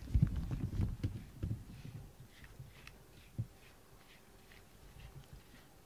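Low, close rubbing and bumping as a cat is brushed with a silicone brush and pushes against it. It is loudest in the first second and a half, with one soft knock about three and a half seconds in.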